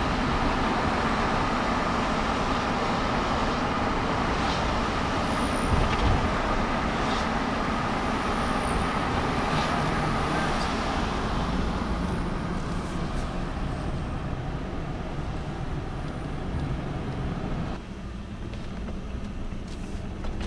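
Steady road and engine noise of a vehicle driving, heard from inside the cab. It grows quieter past the middle and drops suddenly about three-quarters of the way through.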